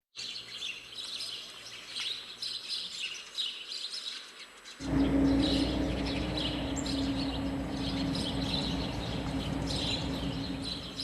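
Small birds chirping repeatedly in short bursts. About five seconds in, a louder steady hum with a low rushing noise starts suddenly and holds under the birdsong.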